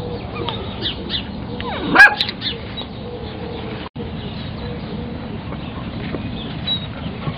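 Eight-week-old German Shorthaired Pointer puppies yipping. One sharp yelp about two seconds in is the loudest sound, quickly rising and falling in pitch, among a few fainter squeaks. The sound cuts out briefly twice.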